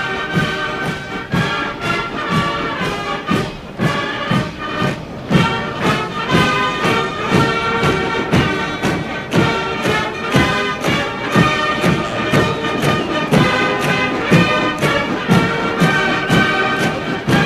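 Military brass band playing a march, with a steady beat of about two strokes a second.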